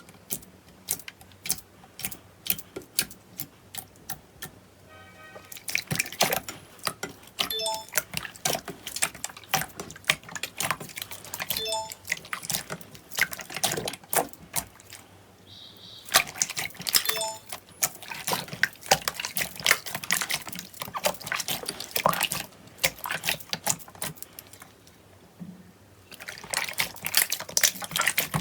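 Slime being squished and worked by hand, giving dense runs of sticky clicks and pops, with brief lulls about four seconds in and again near the end.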